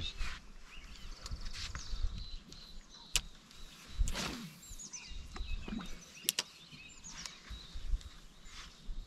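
Outdoor ambience with small high bird chirps throughout, two sharp clicks, and a brief falling swish about four seconds in.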